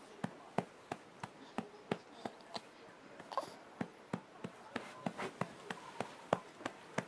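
A hand patting a newborn baby's back in a steady rhythm, about three pats a second, to bring up a burp.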